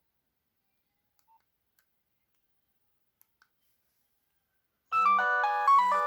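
Near silence with a few faint clicks, then about five seconds in a Nokia 6030 ringtone starts suddenly: a quick electronic melody of several notes at once over a bass line.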